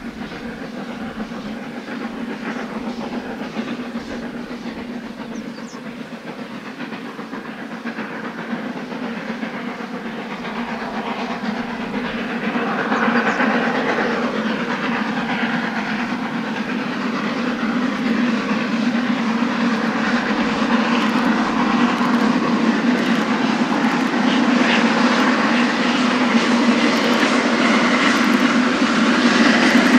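Garratt steam locomotive working a train, its exhaust and running noise growing steadily louder as it approaches.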